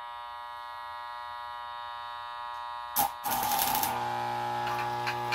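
Homemade arc welder's transformers buzzing steadily; about three seconds in the arc strikes with a crackle and sizzle, and the transformer buzz grows louder and deeper under load.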